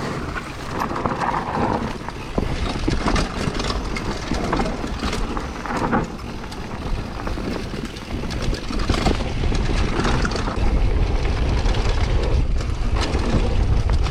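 Mountain bike riding fast down a trail: wind buffets the microphone while the tyres roll on dirt and the bike rattles and clatters over bumps. The wind rumble grows heavier about ten seconds in.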